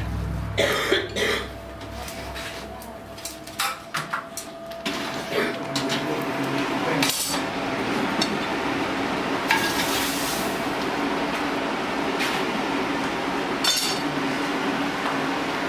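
Iron pieces and smithing tools clinking and knocking at a blacksmith's coal forge and anvil, with a few sharp metal knocks in the first five seconds. After that comes a steady rushing noise from the forge, with an occasional knock and a short hiss about ten seconds in.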